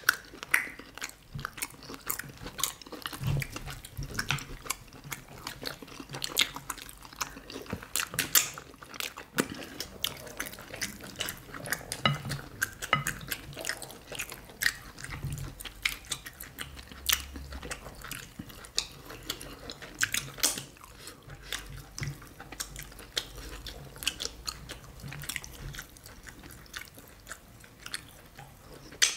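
Close-miked wet chewing and mouth sounds of people eating fufu with banga soup by hand: a steady run of irregular lip smacks, clicks and squelches.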